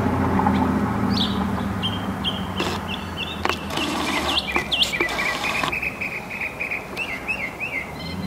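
Northern mockingbird singing: a run of chirps and whistled notes, short phrases repeated several times before it switches to the next. A low hum of road traffic sits underneath and fades away.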